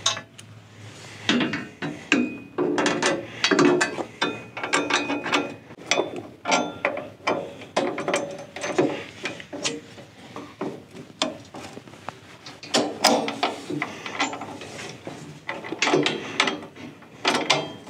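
Hand ratchet wrench clicking in short irregular runs, with metal clinks, as the bolts on the steel brush guard's side mounts are tightened.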